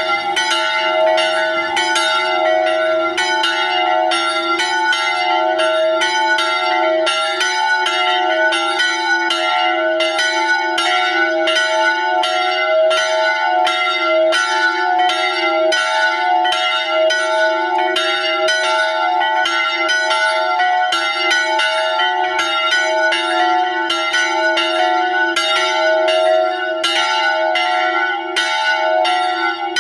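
Two small church bells swinging and ringing together in a steady, continuous run of strokes, about two a second. The bells are tuned E4 and F♯4 and were cast by Daciano Colbachini in 1922. This is the 'parie' peal that calls the faithful to mass.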